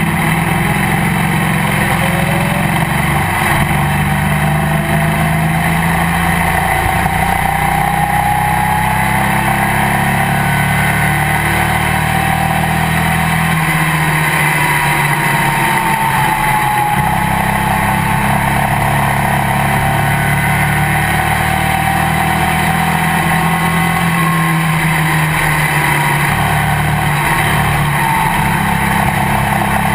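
Race car engine running hard at racing speed, heard from inside the cockpit, a loud steady drone whose pitch shifts slightly a couple of times, around a third and again about four-fifths of the way through.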